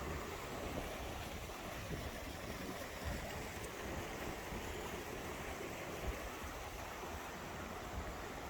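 Mountain stream rushing steadily over rocks, with a few soft low thumps now and then.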